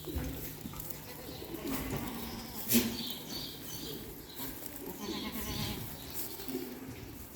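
A herd of Saanen goats calling and bleating at intervals, with one sharp knock about three seconds in.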